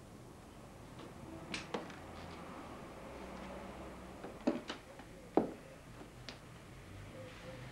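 Several sharp clicks and light knocks of small objects being handled, a pair about one and a half seconds in and the loudest two about four and a half and five and a half seconds in, over a faint room hum.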